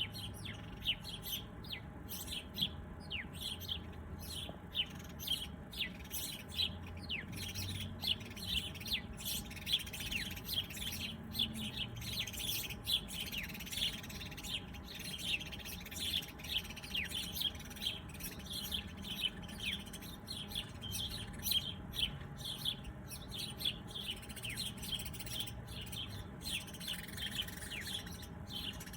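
Birds chirping continuously: a dense stream of short, quick, downward-sliding chirps, several every second.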